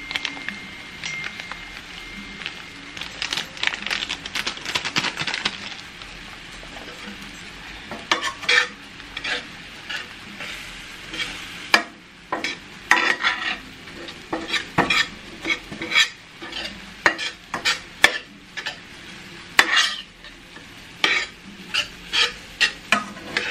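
Ground beef sizzling in a stainless steel pan as a metal slotted spatula stirs in taco seasoning. From about eight seconds in, the spatula scrapes and clacks against the pan in quick, uneven strokes.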